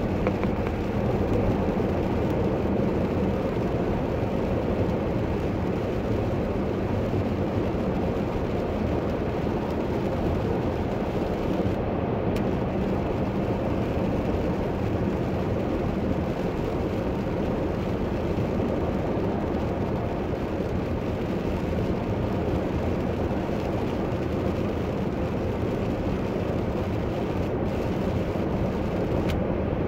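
Steady road noise from inside a car cruising on a wet highway: tyres running on rain-soaked pavement, with the engine underneath.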